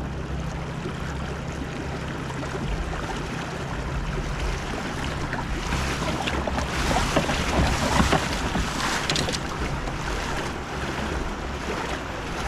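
Kayak moving on open water: wind buffeting the microphone and water rushing and splashing, over a steady low hum, with a few small splashes and knocks near the middle.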